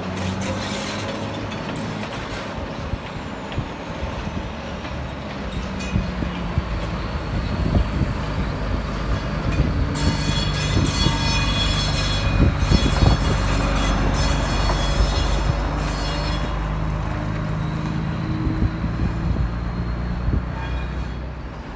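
SJ Rc6 electric locomotive and its train rolling past with a steady low rumble and hum. High ringing tones join for several seconds in the middle, where the passing is loudest.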